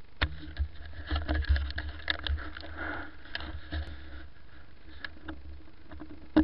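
Babetta 207 moped ridden over a rough dirt track, heard from a helmet camera: a steady low rumble with a run of knocks and rattles over the first four seconds, and two loud knocks near the end.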